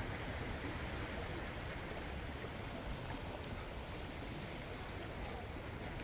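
Small sea waves washing and lapping against black basalt rocks along the shore, a steady, even wash of water with a low rumble underneath.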